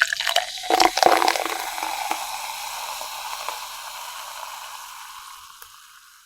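Liquid sound: a few splashy knocks, then a steady hiss of fizzing or rushing water that slowly fades away over several seconds.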